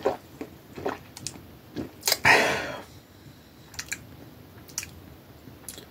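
Mouth sounds of someone tasting sparkling water: scattered small lip and tongue clicks, with one short breathy rush a little over two seconds in.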